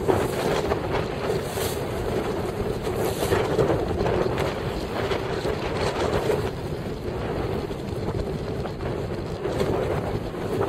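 Wind buffeting the microphone over choppy open water, coming in gusts, with waves washing around the boat.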